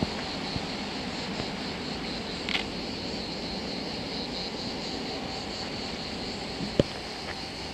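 Steady running noise of an electric train, heard from on board as it travels along the line, with a few short sharp clicks, the loudest about two-thirds of the way in.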